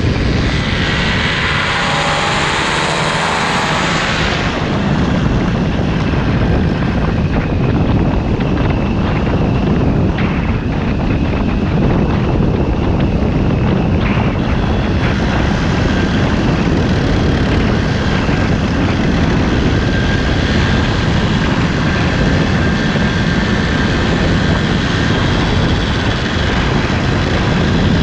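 Paramotor engine and propeller running steadily in flight, heard from a few metres behind. For the first four seconds the sound swirls and sweeps as the camera swings, then it settles to an even drone.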